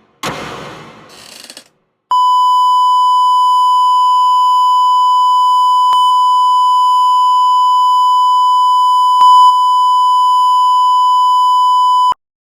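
A short burst of noise dying away, then a loud, steady electronic beep held for about ten seconds that cuts off suddenly.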